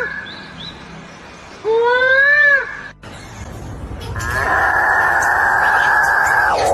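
A bird gives one loud call with a nasal ring that rises and then falls in pitch, about two seconds in. After a short break it holds a long buzzy call for more than two seconds.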